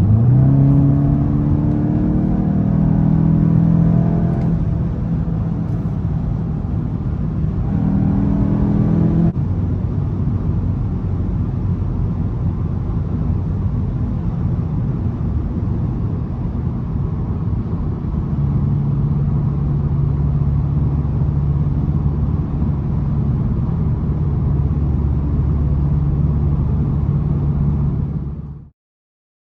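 Volkswagen Golf 8 GTI with its 2.0-litre turbocharged four-cylinder petrol engine, pulling hard with the engine note rising during the first few seconds and again about eight seconds in. It then settles into steady driving, a constant low rumble with an even engine hum, which cuts off suddenly just before the end.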